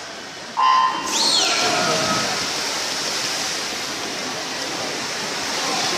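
Electronic swimming start signal beeps about half a second in. The swimmers dive, and the pool hall fills with a steady wash of crowd cheering and water noise, with shouts and whistles rising above it just after the start.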